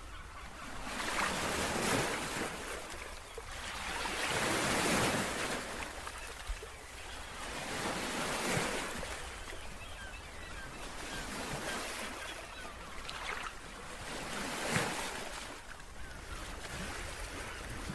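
Surf: waves washing in, swelling and fading every few seconds, over a low rumble of wind on the microphone.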